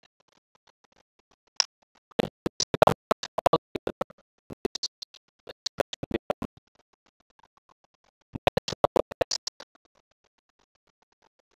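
A stylus tapping and scratching on a pen tablet while handwriting. Three bursts of quick, irregular clicks are separated by short pauses.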